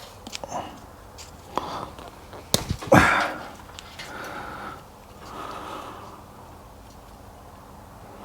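Electrical insulation tape being handled and wrapped around wire ends: small clicks, a sharp loud rip about three seconds in, then soft rasping as more tape is pulled off the roll.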